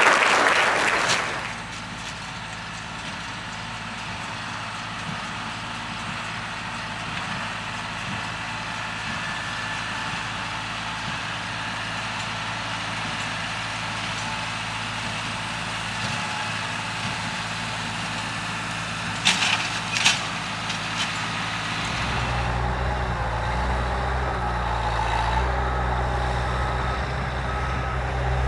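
Applause dies away, leaving an engine running steadily at idle. The low hum gets louder about 22 seconds in, and two sharp clicks come just before that.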